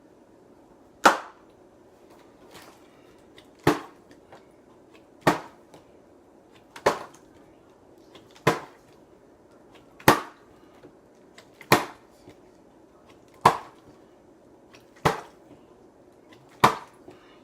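A bottle being flipped and landing on a hard surface ten times in a row, one sharp thud about every 1.6 seconds, with fainter knocks between landings.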